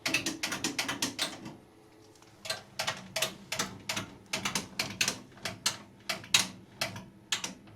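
A run of short, sharp clicks and taps, about three to four a second, from hand work on the washing machine's parts during reassembly. They pause for about a second, near the start.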